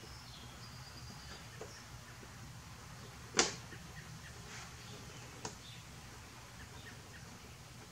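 Light clicks and taps of small screws and hardware being handled up under a vehicle's front bumper, with one sharp click about three and a half seconds in and a smaller one about two seconds later, over a low steady hum.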